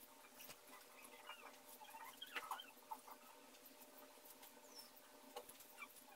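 Faint squeaks and scratches of a black marker pen drawn across paper in short strokes, the loudest squeak about two and a half seconds in.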